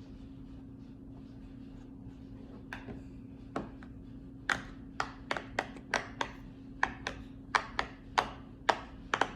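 Silicone star-shaped pop-it fidget toy being pressed bubble by bubble, each giving a sharp pop. The pops begin about three seconds in, then come irregularly at roughly two a second, about seventeen in all.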